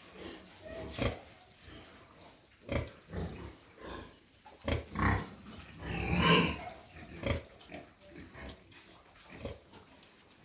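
Pigs grunting in short, irregular calls, the loudest and longest about six seconds in.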